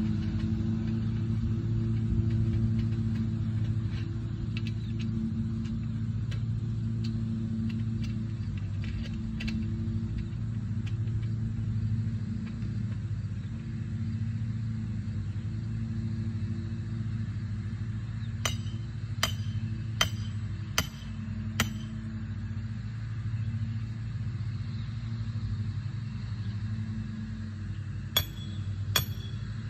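A steady low engine hum, like a vehicle idling, runs underneath. Partway through come five sharp, ringing metal strikes less than a second apart, and three more near the end: hammer blows on metal while the tent frame is put up.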